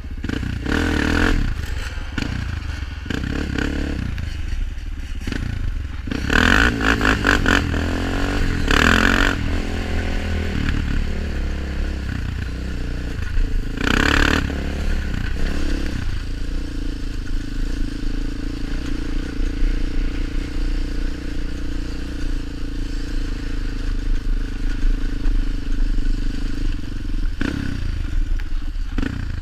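Honda 400EX quad's single-cylinder four-stroke engine running under way, revving in loud bursts early on and then holding a steady pitch from about halfway through, with wind rumble on the helmet microphone.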